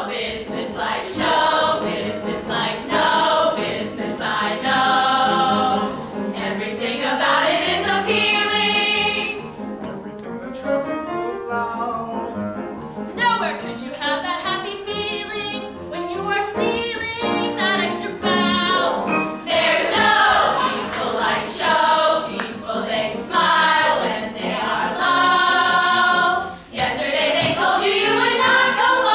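A stage ensemble of young performers singing a musical theatre number together in chorus, with long held notes.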